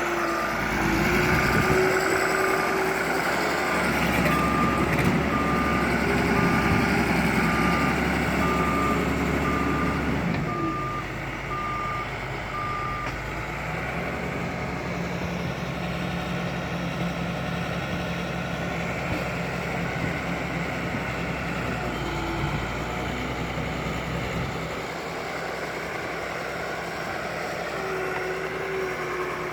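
Bulldozer's diesel engine running under load, with its reversing alarm beeping evenly for the first dozen seconds or so, the sign that the machine is backing up. The engine is loudest early on and eases to a lower, steadier run about ten seconds in.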